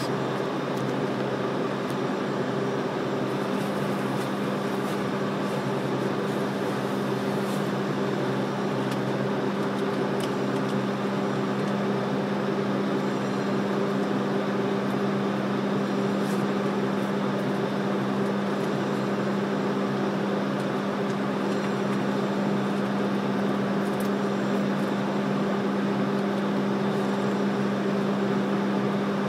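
Steady machinery hum on a ship's enclosed steel vehicle deck: a constant low tone with a fainter higher one over an even rushing noise, unchanging throughout.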